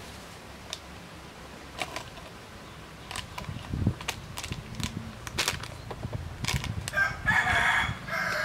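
A rooster crowing near the end, over scattered scratching and rustling as hands scrape soil and dry leaves.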